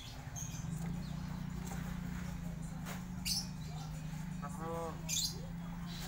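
A caged hill myna calling: a few short, sharp high calls and a brief pitched, speech-like call about five seconds in. A steady low hum runs underneath.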